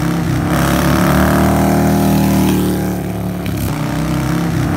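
Motorcycle engine revving, with the revs sagging about halfway through before holding again.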